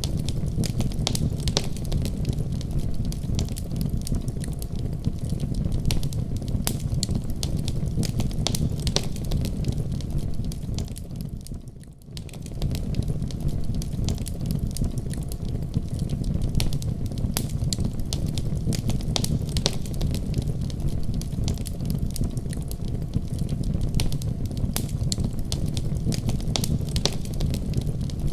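Wood fire burning in a fireplace: a steady low rumble of flames with frequent sharp crackles and pops of the burning logs. The sound fades down briefly about twelve seconds in, then comes back to full level.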